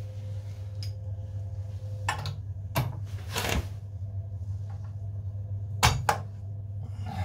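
Hands handling a tool or fitting on a copper water pipe: a few sharp metallic clicks and knocks, with a brief rustle near the middle, over a steady low hum.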